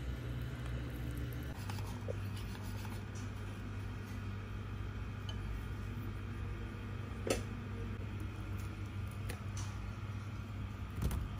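Wire whisk stirring crepe batter in a ceramic bowl, with faint scraping and a few light clinks of the whisk against the bowl, the sharpest about seven seconds in, over a steady low hum.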